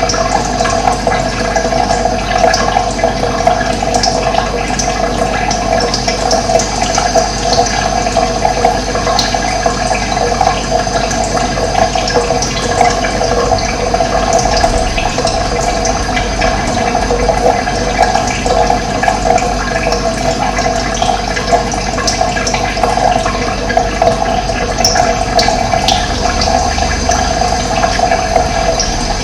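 Running water flowing steadily in a continuous rush, without pause or change.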